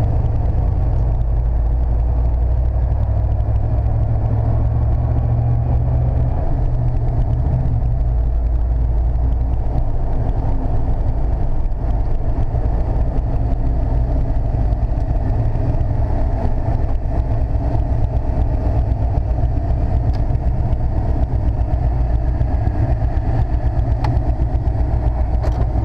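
Steady low engine drone and road noise inside the cab of a 1995 Chevy C/K 1500 pickup while it is being driven.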